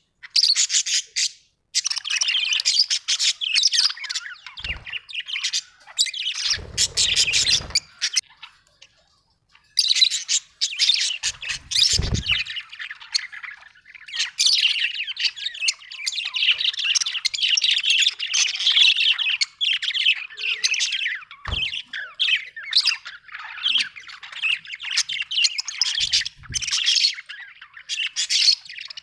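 Budgerigars chirping and chattering in fast, busy bursts of high squeaky notes, with a couple of short pauses and a few dull low thumps mixed in.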